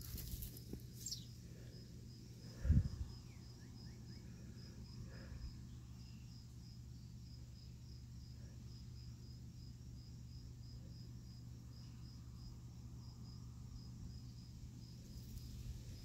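Faint, high chirps repeating steadily about twice a second over a low steady hum, from a small chirping creature; a single thump about three seconds in is the loudest sound.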